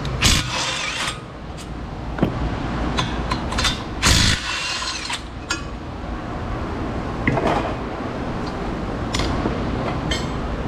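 Brake parts and tools being handled: a few sharp metal clanks and knocks, the loudest a clatter lasting about a second around four seconds in, over a steady low hum.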